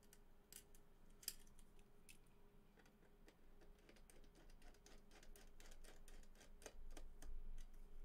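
Faint, irregular clicking and ticking of small metal screws and a Phillips screwdriver being handled as screws are lined up and driven into a Blu-ray drive, the clicks coming thicker in the second half.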